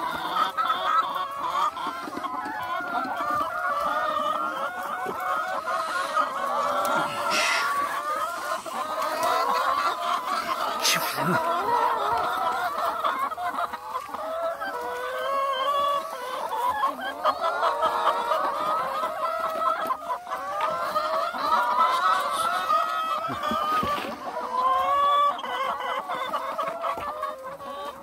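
A flock of hens clucking continuously, many calls overlapping, with two short sharp noises about a third of the way in.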